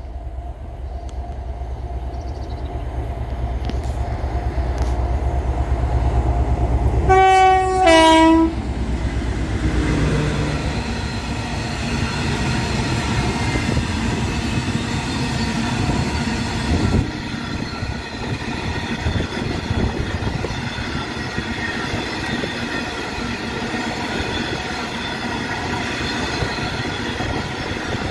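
DB Class 60 diesel locomotive 60024 approaching, its Mirrlees eight-cylinder engine drone building. About seven seconds in it sounds its two-tone horn, a short high note then a lower one. Then a long train of empty bulk hopper wagons runs past with a steady rumble of wheels on rail.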